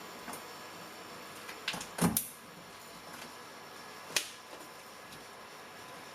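A few sharp knocks and clicks over a steady faint hiss, the loudest a double knock about two seconds in and another sharp click about four seconds in.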